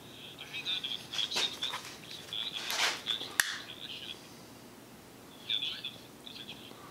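Small birds chirping steadily in the background, over workbench handling noises: a couple of short rustles and one sharp click about three and a half seconds in, as a hand tool is worked on a wire's spade connector.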